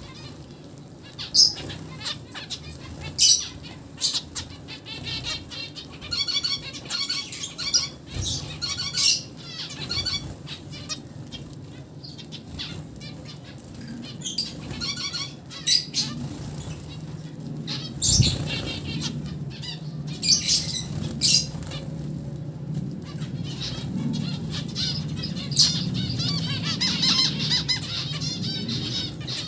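Zebra finches calling: many short, sharp calls and quick runs of chirps, busiest near the end, over a low steady hum.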